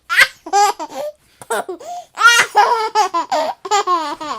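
A baby laughing and cooing in a run of short, high-pitched bursts that rise and fall in pitch.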